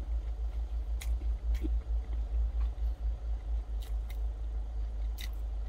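A person chewing food, with a few light clicks of wooden chopsticks against a paper noodle cup, over a low uneven rumble.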